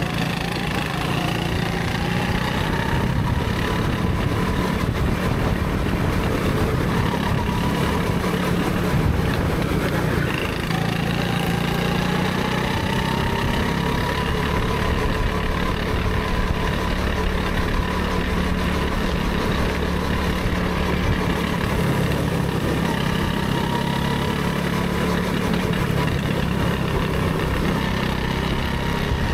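Go-kart engine running hard under the driver, heard from the seat. Its note climbs slowly, drops sharply about ten seconds in, then climbs again as the kart accelerates.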